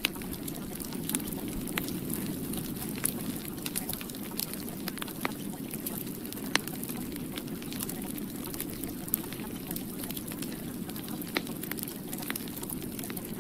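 Steady low hiss with irregular sharp crackles and clicks scattered through it.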